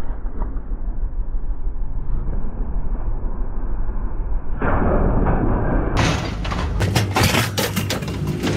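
A low rumble of a running engine, then from about six seconds in a rapid run of clanks and crashes as scrap metal is thrown off a pickup bed onto the pile.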